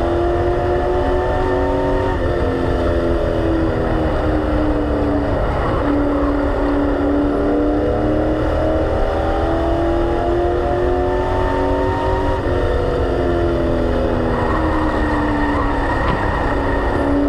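Race car engine heard from inside the cockpit, running hard at speed on an oval: its pitch climbs and eases as the driver works the throttle, dropping sharply about two seconds in and again about twelve seconds in, over a constant low rumble of road and drivetrain noise.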